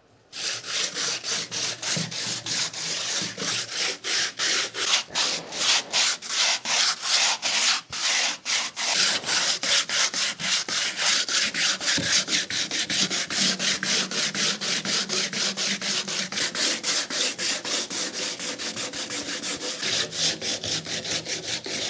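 Sandpaper rubbed by hand over cured fiberglass laminate in quick, rhythmic back-and-forth strokes. This is the sanding between layers that knocks down stray glass strands so the next layer of cloth lies flat without air bubbles.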